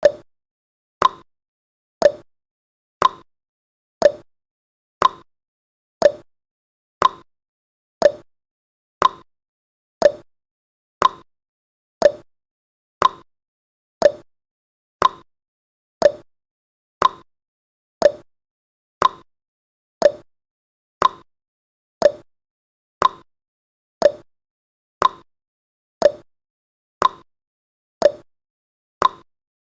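Countdown timer sound effect: a short click once every second, steady and even.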